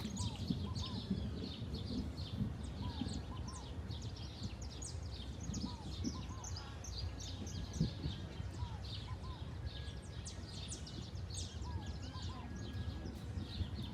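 Many small birds chirping and calling, with dense short high notes throughout and a pair of lower arched whistled notes recurring every second or two, over a steady low background noise.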